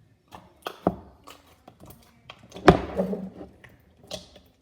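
Thick, non-sticky homemade slime being squeezed and stretched in the hands, giving a quick string of sharp clicks and pops, the loudest about two and a half seconds in.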